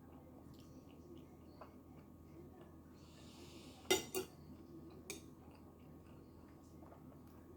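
Eating utensil clinking against a dish: a sharp double clink about four seconds in and a lighter clink a second later, with faint small ticks between.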